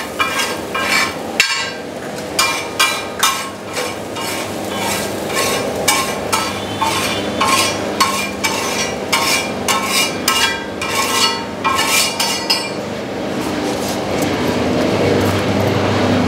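Steel spatula clanking and scraping on a large flat iron tawa as magaz masala is stirred and fried, about two ringing metal strikes a second. The clanking stops near the end, leaving a steady background noise.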